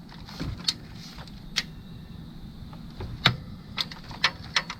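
Scattered light metallic clicks and knocks, about seven at irregular intervals, from hand tools and fasteners being handled on the engine while bolts are checked for tightness.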